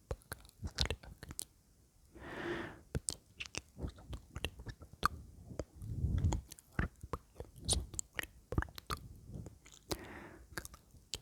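Close-miked male ASMR mouth sounds: a dense, irregular run of wet clicks and smacks of the lips and tongue, with two short breathy sounds in between.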